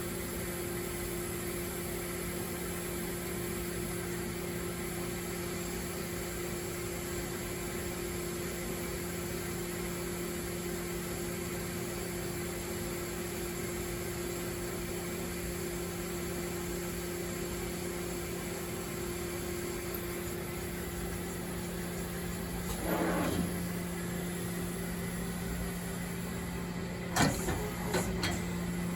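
Mori Seiki NT1000 CNC multitasking lathe powered up, giving a steady machine hum with two low, even tones. About three quarters of the way through there is a short sliding sound, and near the end a few sharp mechanical knocks.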